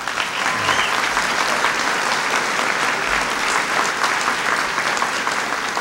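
Audience applauding: dense, steady clapping that starts at once and keeps an even level throughout.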